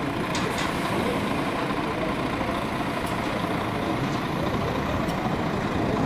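Steady street traffic noise: the even rumble and hiss of road vehicles, a city bus among them.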